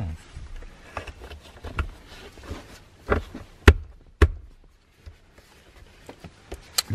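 A hard plastic seat trim bezel being handled and pressed into cut carpet: scattered taps and rustles, with two sharp clicks about three and a half and four seconds in.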